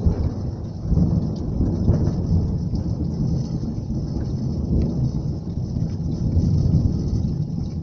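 Rolling thunder during a heavy downpour: a long low rumble that swells and eases several times over the steady hiss of rain falling on the street.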